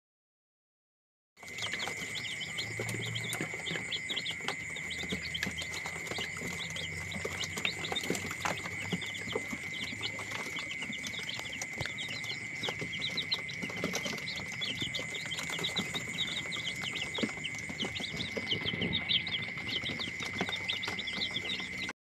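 A brood of young chicks peeping nonstop, many short high peeps overlapping, over a steady high-pitched tone. It starts suddenly about a second and a half in.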